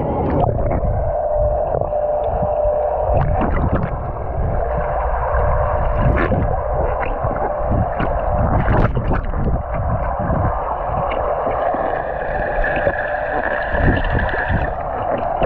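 Wave-pool water sloshing and gurgling around the camera, muffled, with a constant run of small splashes.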